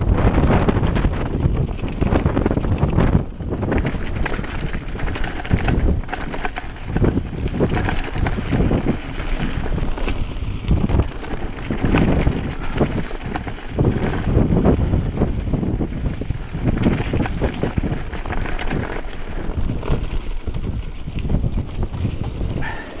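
Wind buffeting the camera microphone over the rumble and rattle of a full-suspension mountain bike's tyres rolling fast over a rough, stony dirt track, with frequent small knocks from the bumps.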